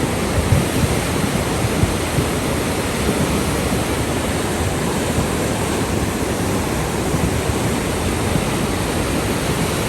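A swollen hill river rushing in spate after heavy rain, a steady loud roar of fast-flowing water.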